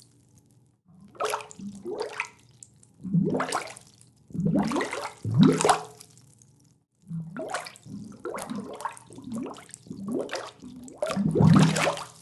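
Air bubbles welling up and popping at a water surface, in bursts of gurgling with quick rising blips, about six bursts separated by short pauses.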